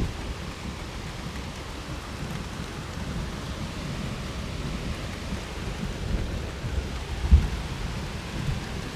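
Steady rain with thunder rumbling low underneath. A short low thump, the loudest sound, comes about seven seconds in.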